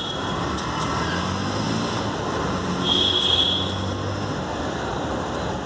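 Steady street traffic noise with a vehicle engine's low hum, and a short high-pitched beep about three seconds in.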